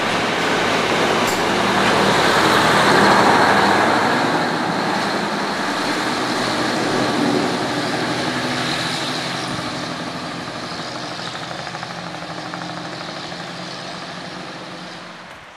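Diesel multiple-unit passenger train running past and pulling away along the track, with engine hum under the rumble of wheels on rail. It is loudest about three seconds in and fades steadily as the train moves off.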